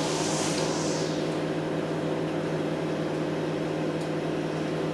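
Steady hum of a running fan motor, like a kitchen appliance, with a soft hiss of liquid in about the first second as hands press potato slices down into milk and cream in a glass dish.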